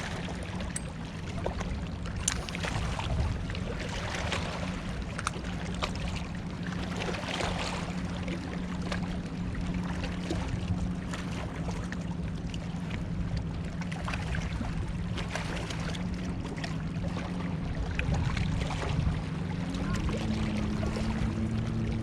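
Steady motor hum over a hiss of water or wind noise, its pitch stepping up about 20 seconds in.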